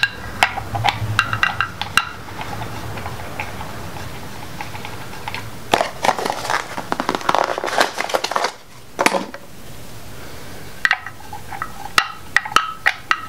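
Light metallic clicks and taps as Delphi knock sensors are handled and set into the bores of an LS engine's metal valley pan cover. In the middle comes a stretch of crinkling and rustling as the second sensor is unpacked.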